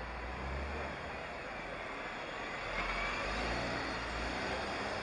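Street traffic with a double-decker bus driving past, its engine rumbling low and getting a little louder about three seconds in.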